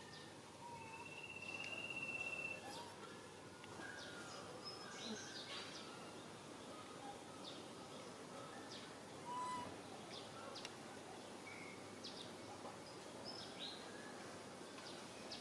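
Outdoor ambience of scattered bird chirps and short calls, including one long held whistle about a second in, over a steady background hiss.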